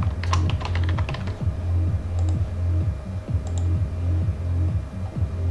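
Electronic dance music with a heavy, steady bass beat. A quick run of computer keyboard clicks comes in the first second or so.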